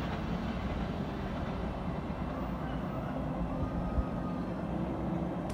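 Steady low rumble of the Argo Lawu passenger train running away into the distance, with one short thump about four seconds in.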